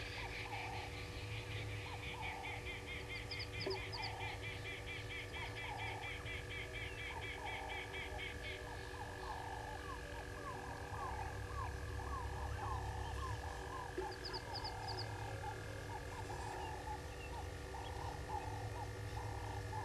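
Frogs calling: a croak repeating about once a second, with a fast run of high clicking pulses that stops about eight seconds in, over a steady high drone.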